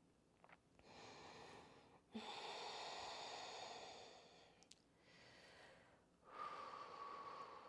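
Faint, slow breathing close to the microphone: a few long breaths in and out, each lasting a second or two, with short pauses between.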